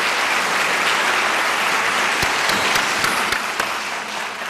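A large audience applauding, with many hands clapping together in a dense, even patter that thins out and dies away near the end.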